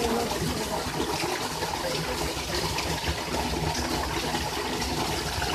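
A strong stream of water gushing from a pipe and splashing into the water of a well, steady throughout. The well is being filled so that a cow trapped in it floats up.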